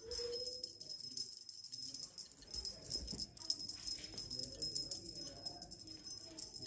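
Steady jingling of small bells, with faint music underneath.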